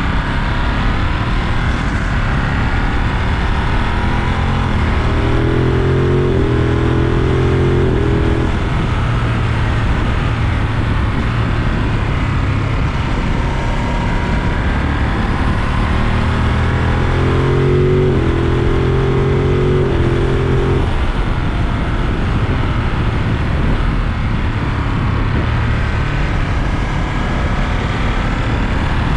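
Ducati Monster 937's 937 cc L-twin engine under way on the road, its pitch rising and falling with the throttle. It pulls hard twice, about five seconds in and again near eighteen seconds, with the pitch climbing in steps.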